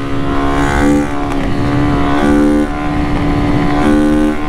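Honda CG 160 single-cylinder motorcycle riding at a steady engine speed. Its exhaust is loud and open-sounding, like a bare pipe, because the muffler has been gutted by forcing a steel rod through it. Heard from inside the rider's helmet.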